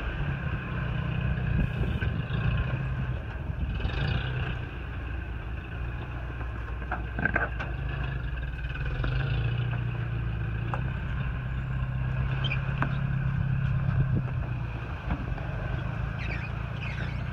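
Toyota Hilux pickup's engine running steadily at low revs while crawling off-road, with a few scattered clicks and knocks.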